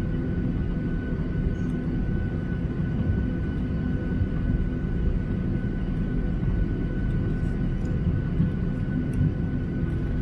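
Boeing 737-800 jet engines idling, heard from inside the cabin: a steady low rumble with a thin high whine.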